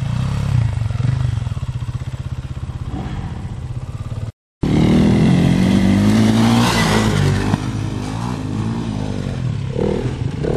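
Off-road enduro motorcycle engines. First a bike runs at a distance; after a brief dropout about four seconds in, a bike revs up loudly as it rides close by, its pitch rising and falling. Near the end a more distant bike is heard climbing.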